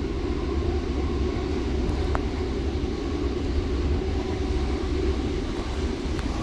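Interior running noise of a Class 321/4 electric multiple unit: a steady low rumble with a broad hiss of the carriage on the move.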